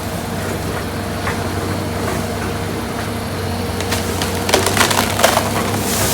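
CAT excavator's engine running steadily while wood cracks and splinters as the machine breaks down a tree, with a cluster of sharp snaps about four to five seconds in.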